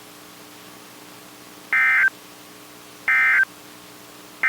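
EAS end-of-message data bursts from NOAA Weather Radio: three identical short, buzzy digital tone bursts about a second and a half apart, the last just beginning near the end, marking the end of the severe thunderstorm warning. A faint steady hum sits between them.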